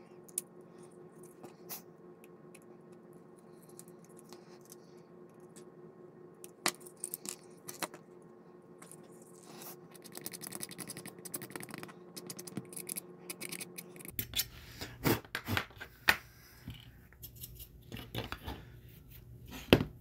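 Small plastic model-kit parts handled and fitted by hand: scattered light clicks and taps, a stretch of scraping in the middle, and a quicker run of clicks and knocks near the end. A low steady hum sits underneath until about two-thirds through.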